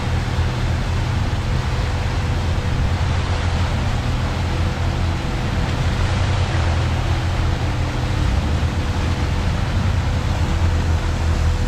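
Jeep engine running steadily at low speed while rock crawling, under a steady rush of water noise.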